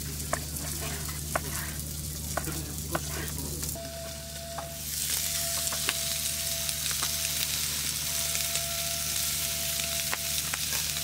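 A knife chops through roast meat on a wooden cutting board in a few sharp knocks; about four seconds in, this gives way to meat sizzling on a portable gas grill, with occasional clicks of tongs on the grate.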